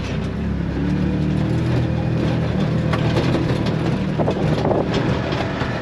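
Side-by-side UTV engine running steadily as the machine drives over rough mountain ground, with frequent rattles and knocks from the vehicle.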